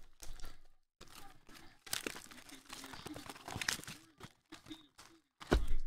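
Foil trading-card pack wrappers crinkling and tearing as packs are ripped open and the cards handled, in irregular rustles with the loudest one shortly before the end.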